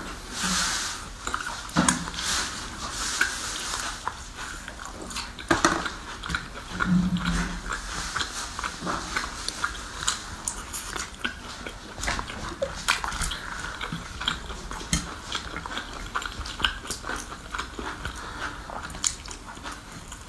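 Close-miked eating of spicy grilled meat skewers: biting meat off the skewers and chewing, heard as many short, irregular clicks and crackles.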